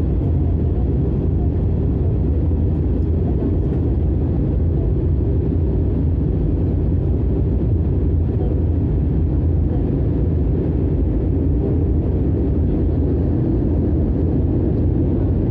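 Airliner cabin noise heard from a window seat beside the engine: a steady, even low rumble of jet engines and rushing air as the plane descends towards landing.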